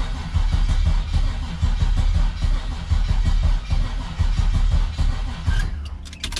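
Starter cranking the Nova's swapped Chevrolet LS V8, the engine turning over with a steady fast pulse for about six seconds and never firing, then stopping near the end. It cranks but won't start.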